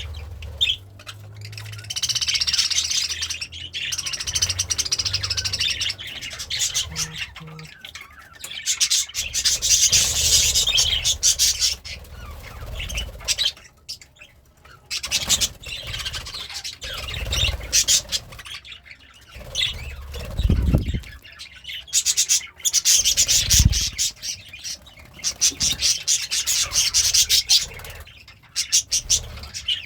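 Budgerigar chattering and warbling in long runs of rapid chirps and squawky notes, with short pauses between runs. A few low thuds come in the second half.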